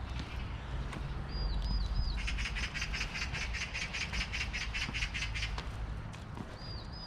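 Oriental magpie giving its rapid rattling chatter for about three seconds, with short three-note chirps of a smaller bird just before and after.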